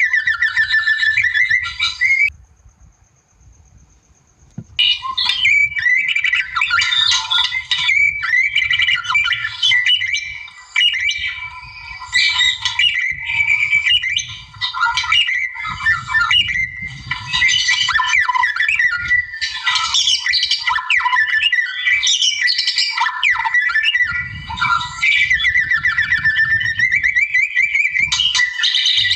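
White-rumped shama (murai batu) singing a rapid, varied song of whistles and chattering trills. It breaks off about two seconds in and starts again a couple of seconds later.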